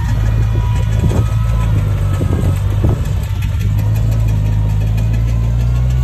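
Komatsu bulldozer's diesel engine running steadily with a deep drone, with a few sharp knocks in the first three seconds.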